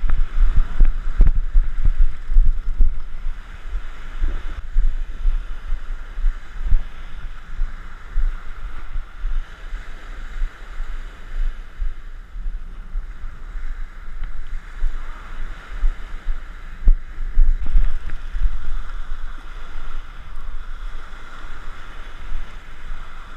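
Wind buffeting the microphone in irregular low rumbles, over the steady wash of small surf breaking on a sandy beach.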